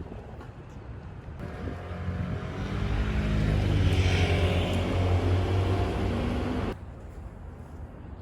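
A motor vehicle passing close by: a low engine hum with a rushing hiss builds up, holds loudly for a few seconds, then cuts off abruptly near the end.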